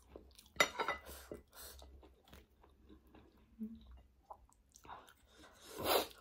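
Close mouth sounds of a person chewing food, with a few crisp crunching bites about half a second in and quieter chewing after. A louder rush of noise comes near the end.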